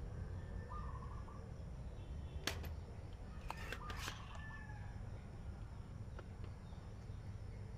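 Sharp clicks from a spring-loaded desoldering pump: one loud snap about two and a half seconds in, then a quick cluster of clicks about a second later, over a low steady rumble.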